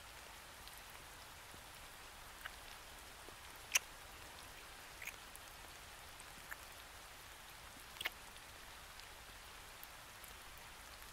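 Light rain falling steadily as an even hiss, with a few sharp clicks scattered through it, the loudest about four seconds in and another about eight seconds in.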